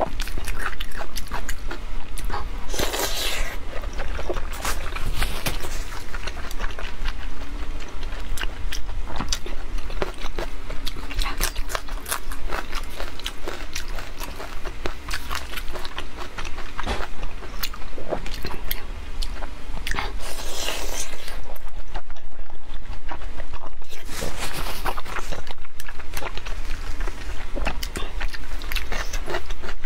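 Close-miked wet chewing and lip smacking of soft, sticky braised pork intestines, a dense run of small clicks, with two louder noisy stretches about three seconds and twenty seconds in. A steady low hum lies underneath.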